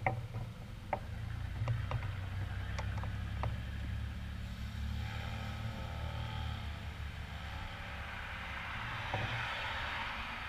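Road traffic at an intersection, heard from a bicycle stopped at a red light: a steady low rumble with a few light clicks and knocks in the first few seconds. A vehicle then approaches and passes close, its tyre noise swelling to a peak near the end.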